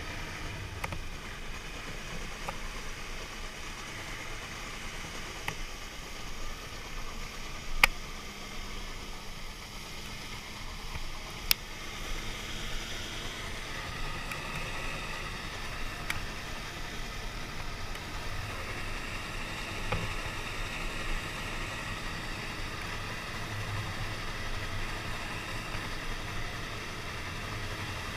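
Snowmobile running steadily at speed over snow: a low engine drone under a steady rush of wind noise, with two sharp clicks, one about eight seconds in and one about twelve.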